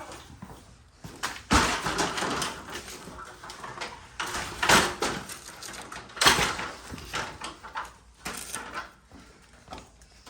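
Heavy-nap paint roller rolling thick peel bond primer onto rough plaster: irregular swishing strokes, loudest about one and a half, four and a half and six seconds in.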